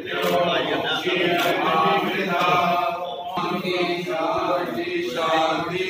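Group of men chanting a Hindu prayer together, a steady run of voices with brief pauses between lines.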